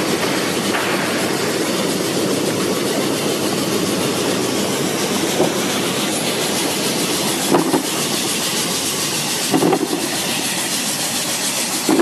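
QX-22 stainless-steel bubble washing machine running: a steady rushing, rattling noise of the air-bubble wash tank and conveyor, with a few short knocks about every two seconds in the second half.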